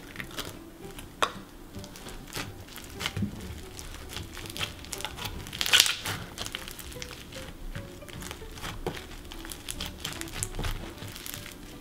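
Slime full of foam beads being squeezed and kneaded by hand, with many small irregular crackles and clicks, loudest about six seconds in. Faint background music underneath.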